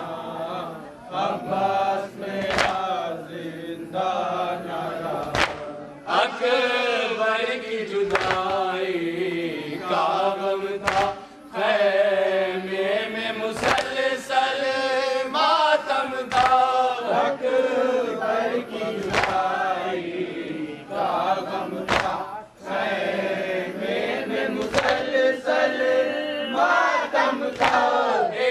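Male voices chanting a noha, a Shia mourning lament, led by one voice with others joining. A sharp slap comes about every three seconds: hands striking chests in matam, in time with the chant.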